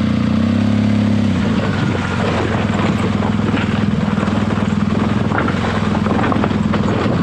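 BMW R1200GS Adventure's boxer-twin engine running under load at a steady low pace, the revs easing off a little about a second and a half in and then holding. Scattered clicks and knocks over the engine.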